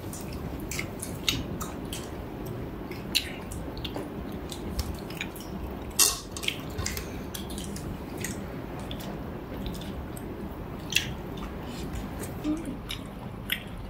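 People eating: wet chewing and mouth sounds, with scattered sharp clicks of cutlery on plates, the loudest about six seconds in.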